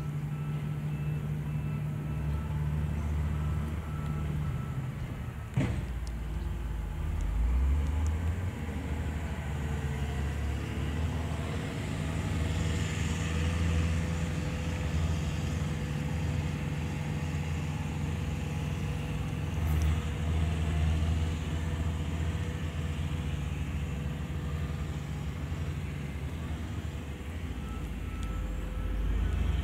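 A steady low drone like a motor vehicle's engine running, with a sharp knock a few seconds in.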